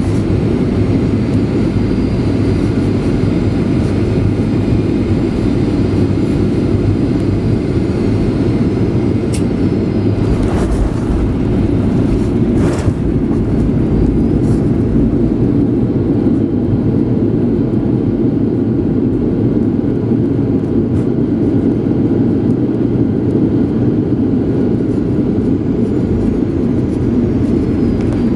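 Steady low rumble of a Boeing 737-800 jet airliner's engines and airflow, heard inside the cabin as the flight comes in to land. A few brief knocks come about ten to thirteen seconds in.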